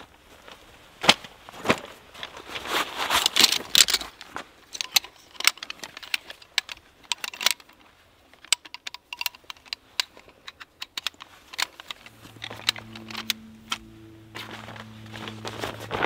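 Metal poles of a folding camp chair clicking and clinking as the sections are fitted together and the frame is set up, in quick irregular knocks. A low steady hum comes in about three-quarters of the way through.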